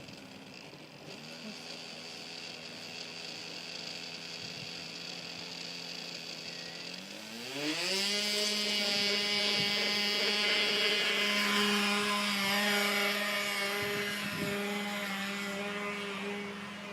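Small O.S. nitro glow engine of an RC trainer airplane running at low throttle, then throttled up about seven seconds in, its pitch rising quickly to a steady high buzz that holds at full power with slight dips.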